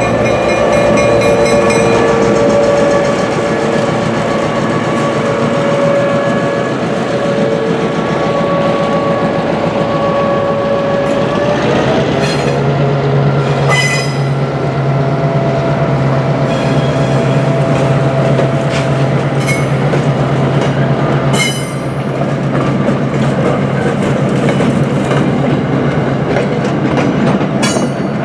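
Diesel-hauled train passing close by: the locomotive's engine runs, then a flatcar and passenger coaches roll past with steady wheel noise, a sustained squeal on the rails and a few sharp clacks from the wheels.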